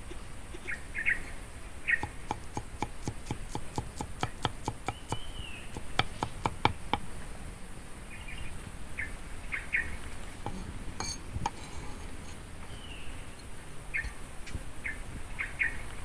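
Kitchen knife chopping garlic on a thick wooden chopping block: a run of quick knocks, about four or five a second, from about two seconds in to about seven seconds in. Birds chirp throughout, in short high calls and little clusters of notes.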